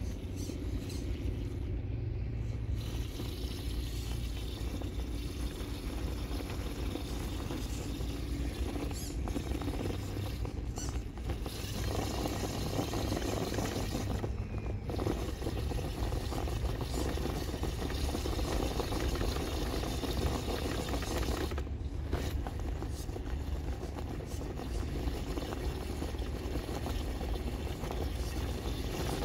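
RC rock crawler's electric motor and drivetrain running at crawl speed, with its tyres scraping and crunching over loose dirt and gravel as it climbs a steep bank.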